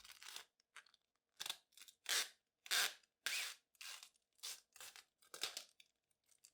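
About a dozen short, separate rustling swishes of the keyboard and its packaging being handled, spread unevenly and fading off near the end.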